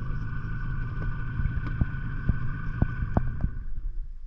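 Outboard motor of a river pirogue running steadily, with a whine that fades out about three and a half seconds in over a low rumble that carries on. Scattered short clicks sound throughout.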